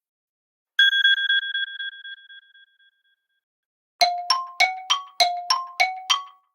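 iPhone alarm tones, played one after another: first a rapid ringing trill that fades out over about two seconds. After a pause comes a second tone of quick chiming notes alternating between two pitches, about three a second.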